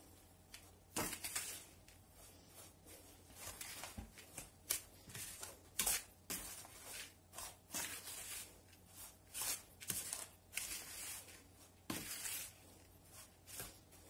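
Metal spoon stirring and scraping through a dry mix of grated bar soap and powders (borax, washing soda, baking soda) in a plastic bowl: uneven, gritty scraping and rustling strokes, a few of them louder.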